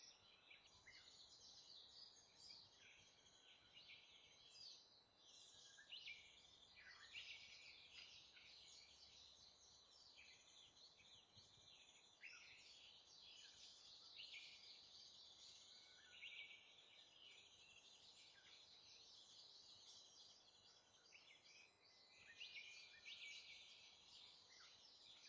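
Faint, continuous chatter of short, thin, high-pitched calls from warbling white-eyes, many notes overlapping with no break.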